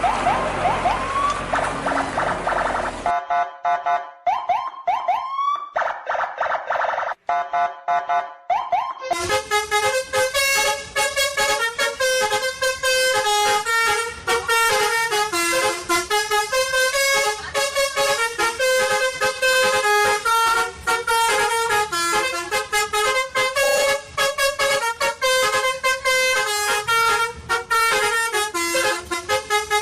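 An edited sound track of horn-like tones. In the first nine seconds come several short rising whistle-like glides and repeated beeps. From about nine seconds in, a fast, continuous tune of quick horn-like notes plays without a break.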